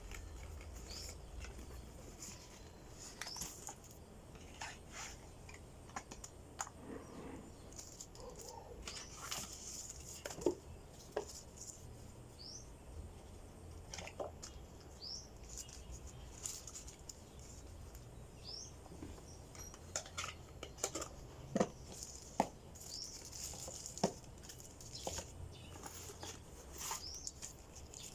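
Scattered light clicks, taps and rustles of packaging and parts being handled, with a few short high squeaks.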